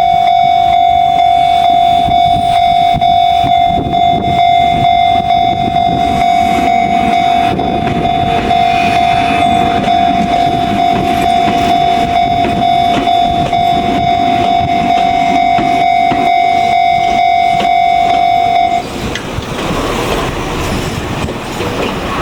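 Japanese level-crossing alarm ringing its steady electronic 'Chichibu-tone' bell while a Jōmō Electric Railway train passes over the crossing. The bell stops abruptly about 19 seconds in, and the train's running noise carries on.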